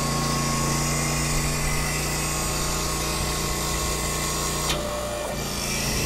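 Electric log splitter's motor and hydraulic pump running under load with a steady hum as the ram presses against a pressure gauge, building to full pressure of about 13 MPa. Near the end a click, and the hum drops in pitch for a moment before settling again.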